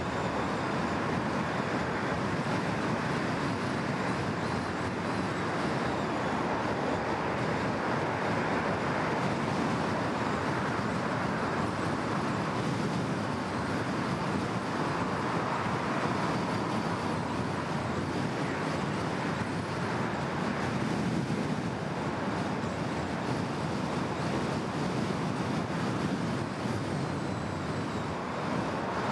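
Steady tyre and road noise of a car driving along a multi-lane city road, with traffic around it.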